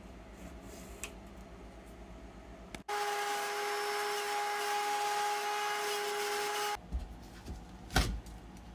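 Electric power tool running for about four seconds with a steady whine, cutting into the wall to expose a water pipe; it starts and stops abruptly. A couple of knocks follow near the end.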